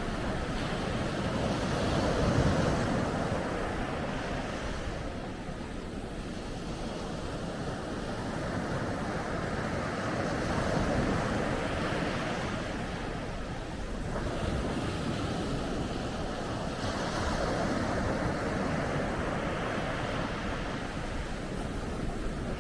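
Ocean surf breaking on a beach, a steady wash of water noise that swells and falls back in slow surges, loudest a couple of seconds in, again about halfway, and once more near the end.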